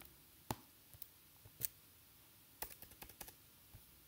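Faint, scattered clicks of a computer keyboard and mouse, with a quick run of clicks around three seconds in.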